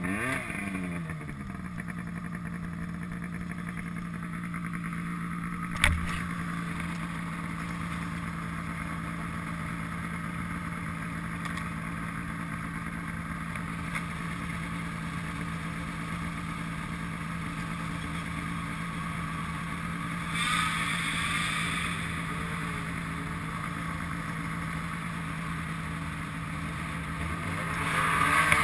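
Snowmobile engines idling steadily, with a sled passing close by at the start, its pitch dropping as it goes. There is one sharp knock about six seconds in, and the engine noise swells near the end as a sled revs to pull away.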